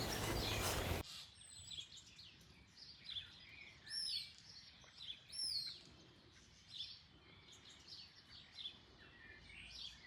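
Loud outdoor noise that cuts off abruptly about a second in, then quiet ambience with songbirds chirping and calling, including two clear arching whistled calls.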